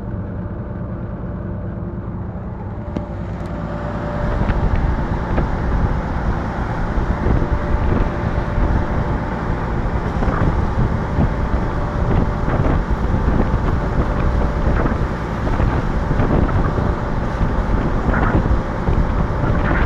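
Diesel locomotive hauling a heavy freight train: its engine running steadily under load, with wheels rattling and clicking on the rails and wind on the microphone. About four seconds in, the whole sound gets louder and rougher.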